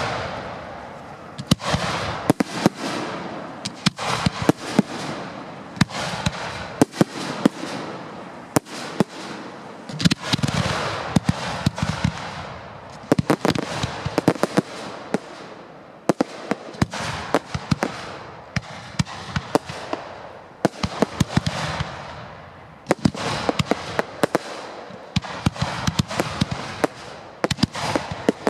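Fireworks display heard close to the firing site: shells bursting in quick succession with sharp bangs, each followed by a crackling hiss that dies away over a second or two.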